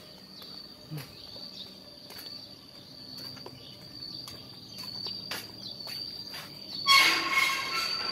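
An insect's steady high-pitched drone, with scattered light clicks of handling or footsteps; about seven seconds in a louder burst of noise with a rough tone in it rises over it.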